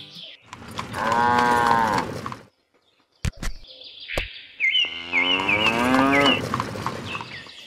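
A cow mooing twice, two long calls of about two seconds each, with a quick repeated high chirping over the second moo and a few sharp clicks in the pause between them.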